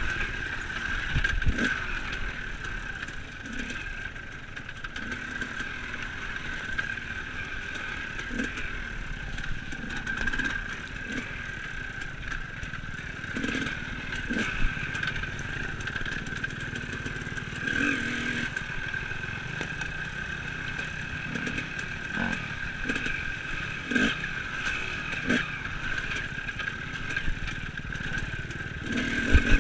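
Enduro dirt bike engine running at a steady, unchanging pitch on a descent, with irregular knocks and clatter as the bike jolts over the rough trail.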